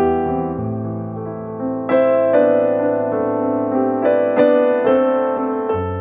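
Background piano music: slow, held chords, with new notes struck every second or so.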